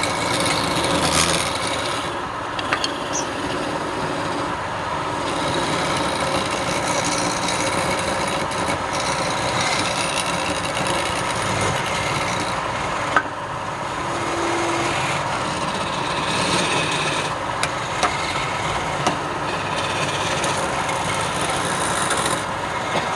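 Wood lathe running, with a tool scraping against the spinning wood in a steady rasping noise, broken by a few sharp ticks.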